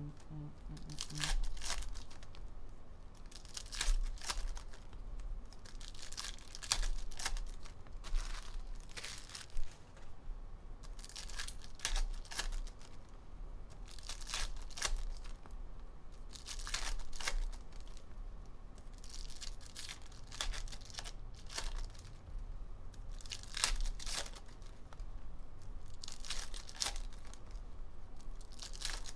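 Foil trading-card packs being ripped open one after another, with a sharp tear every couple of seconds and the wrappers crinkling in between.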